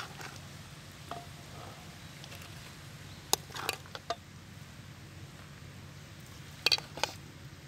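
Metal serving spoon clinking and scraping against a large metal pot as fried cauliflower is scooped out, a few sharp clinks around the middle and again near the end.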